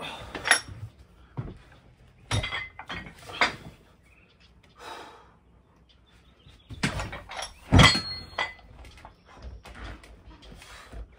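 Heavy plate-loaded dumbbells knocking and clanking as they are picked up and brought into position for a seated shoulder press, a handful of separate knocks with the loudest about eight seconds in.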